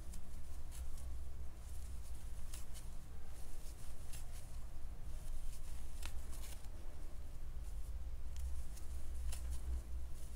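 Faint rustling of acrylic yarn and scattered soft clicks as hands work a crochet hook through the stitches, over a low steady hum.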